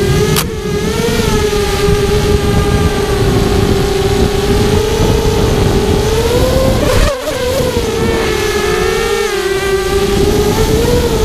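Brushless motors and propellers of a 5-inch ImpulseRC Alien FPV quadcopter whining steadily in flight, the pitch wavering as the throttle changes, over wind rush on the onboard microphone. A sharp click comes shortly after the start, and about seven seconds in the whine swells and then briefly drops away.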